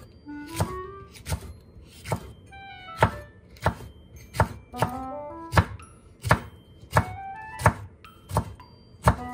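Kitchen knife slicing a green bell pepper into thin strips on a wooden cutting board, the blade knocking on the board in a steady rhythm of about three strokes every two seconds. Light background music plays underneath.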